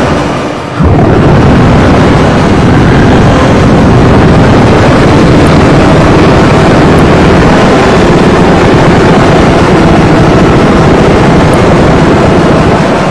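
Harsh noise music: a loud, dense wall of distorted static with no clear pitch or rhythm. It drops away briefly under a second in, then cuts back in abruptly at full force.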